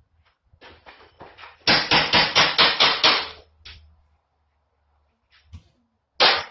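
A run of rapid sharp knocks, about five a second, after a few lighter taps, then a single loud knock near the end.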